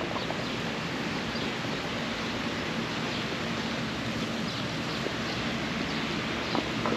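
Steady outdoor background noise: an even hiss with a faint low hum in the first half.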